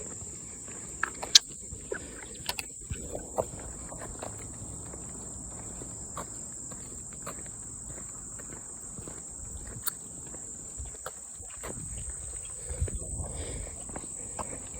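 Insects droning steadily in one high, even pitch, with a few sharp clicks scattered through it.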